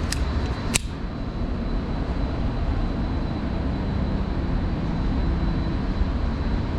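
Steady low rumble of a range's ventilation system, with one sharp click or knock a little under a second in.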